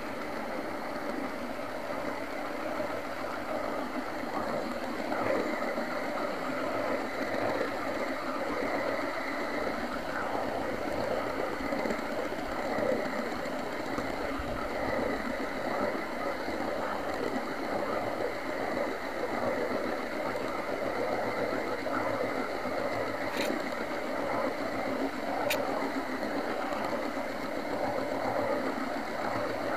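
OO-gauge model train running on its track, heard from on board: a steady whir of the small electric motor and rattle of the wheels. Two sharp clicks come near the end, about two seconds apart.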